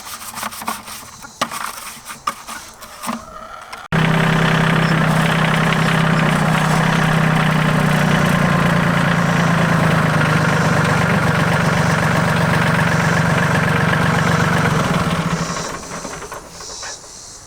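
An engine running steadily, cutting in abruptly about four seconds in and dying away shortly before the end.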